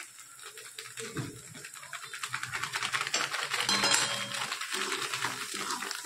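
A plastic spice packet crinkling as pav bhaji masala is shaken out of it into a kadai of vegetables frying in butter and oil. Together they make a dense crackle that starts about a second in and is loudest around the middle.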